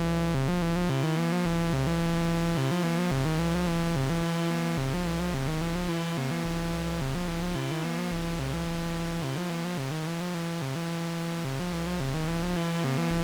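Eurorack modular synthesizer jam: a sequence of short stepped synth notes over a steady low drone, with bass notes pulsing in and out underneath.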